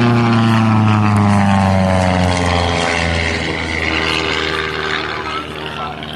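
Single-engine propeller race plane passing low and fast, then flying away. Its engine and propeller drone is loudest at first, then drops steadily in pitch and fades as it recedes.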